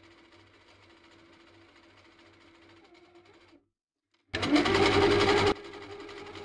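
Sewing machine running as it stitches through a quilted fabric pad, faint and steady at first. After a short break about four seconds in, it comes in much louder for about a second as rapid stitching, then settles to a moderate steady run.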